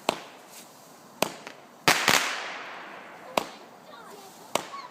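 Consumer fireworks going off: about five sharp bangs a second or so apart, the loudest about two seconds in with a long fading tail.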